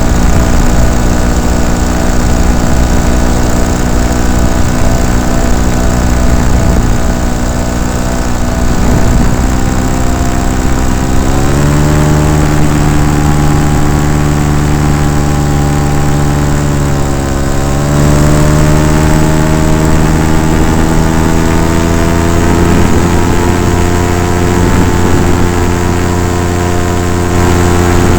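Paramotor engine running steadily; its pitch steps up about a third of the way through, dips briefly a little past halfway, then climbs slowly as the throttle is opened.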